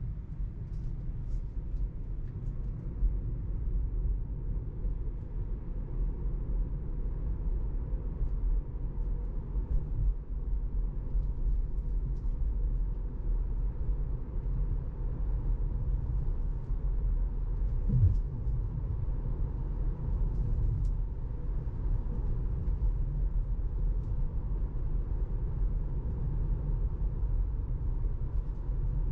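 Steady low road and tyre rumble of a Tesla electric car driving along, heard from inside the car, with a single brief thump about eighteen seconds in.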